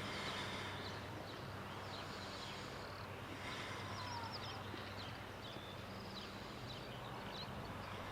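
Faint birds chirping: short, high calls scattered throughout, over a steady low hum.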